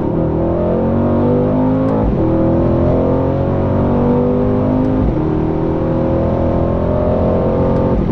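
Mercedes-AMG C63 S Coupé's 4.0-litre twin-turbo V8 under hard acceleration, heard from inside the cabin. The engine note climbs steadily through each gear and drops back with quick upshifts of the nine-speed automatic about two and five seconds in.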